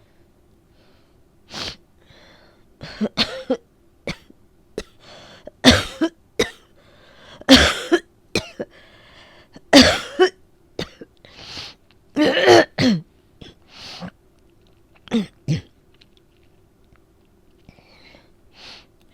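A woman coughing repeatedly from a cold, a wet cough bringing up phlegm. The short coughs come in clusters, loudest in the middle, and thin out near the end.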